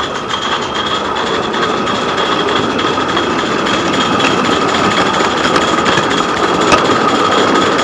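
Mamod live-steam garden railway locomotive running under steam, giving a steady, rapid exhaust and hiss of steam.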